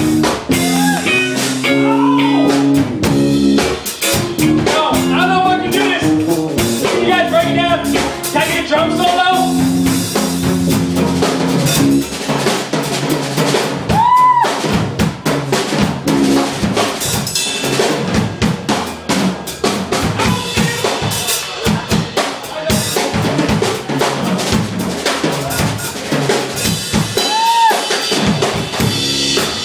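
A band playing with the drum kit out in front: snare, rimshot and bass-drum hits over sustained bass and other pitched instruments. Two short high notes rise and fall, about halfway through and again near the end.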